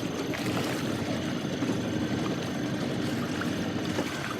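A fishing boat's engine running with a steady low hum under a constant hiss of water and wind, with a few faint ticks.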